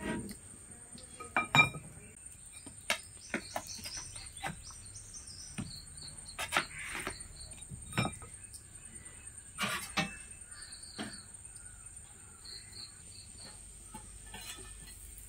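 Scattered sharp clicks and clinks of a metal spatula against an iron dosa pan and a plate, a few of them louder. Under them runs a steady high insect drone, with a few runs of short high chirps.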